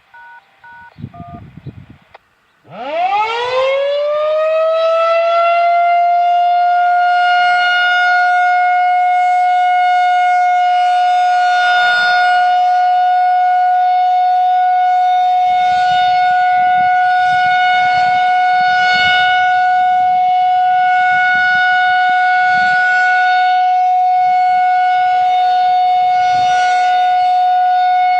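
Brief stepped radio activation tones, then a Federal Signal 2001-130 rotating electromechanical warning siren starting about three seconds in. It winds up quickly to full pitch and holds one steady tone, the alert signal of a monthly test.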